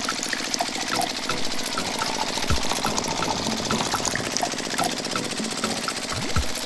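Small electric motor of a homemade mini water pump running steadily, with water pouring and splashing from it.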